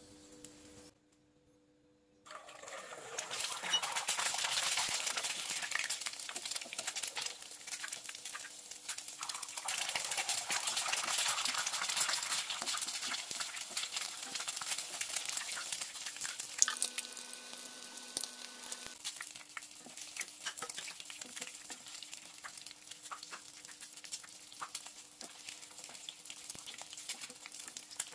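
Duck eggs frying in hot oil in a nonstick pan: after about two quiet seconds the sizzle starts suddenly, then dense crackling and spattering go on, easing a little in the second half.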